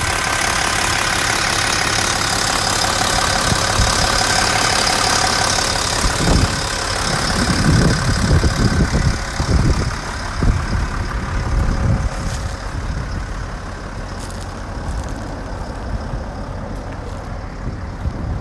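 Diesel engine of a 2014 Volvo L90G wheel loader idling with its hydraulic cooling fan whirring, steady and close at first, then somewhat fainter after about twelve seconds. Irregular low thumps and rumbles come in from about six seconds in.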